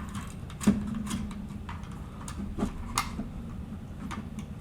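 Scattered small clicks and taps of a nut and washer being fitted onto a panel-mount push button switch in a 3D-printed plastic housing, with the sharpest clicks about two-thirds of a second in and again around three seconds in.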